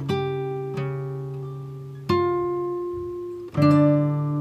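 Background music: a plucked guitar playing slow notes and chords, each ringing out and fading before the next.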